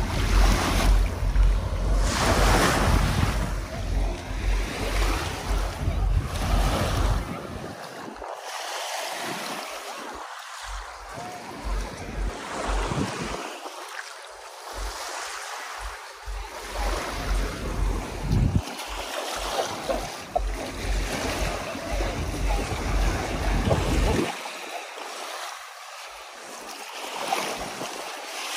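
Small sea waves washing against a rocky shoreline, swelling and falling. Wind gusts rumble on the microphone, heaviest in the first several seconds and again in spells.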